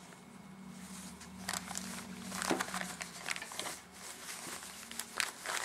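Soft rustling and scattered light clicks of a small pouch and its packaging being handled and opened, over a faint steady hum.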